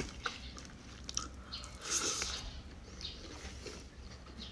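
Close-mouthed eating sounds: soft chewing and wet mouth clicks as a person eats rice by hand, with a louder hiss about two seconds in.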